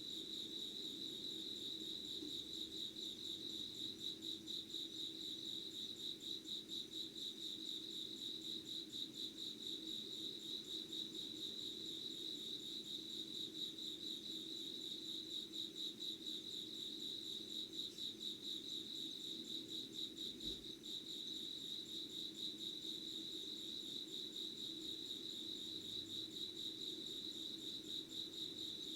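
Insects chirring steadily: a continuous, rapidly pulsing high-pitched song, with a fainter low hum underneath.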